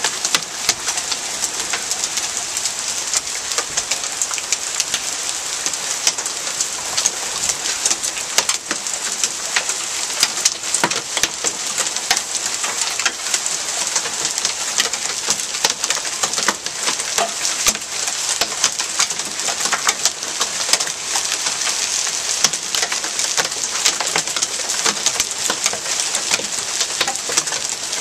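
Hail and rain falling on a wooden porch deck and concrete walkway during a thunderstorm. A steady hiss is thick with sharp ticks and clicks of half-inch to one-inch hailstones striking.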